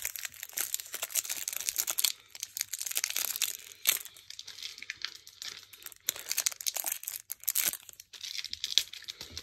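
Match Attax trading-card pack wrapper being torn open and crinkled by hand: an irregular run of crackles, rustles and tearing, with short lulls about halfway and near the end.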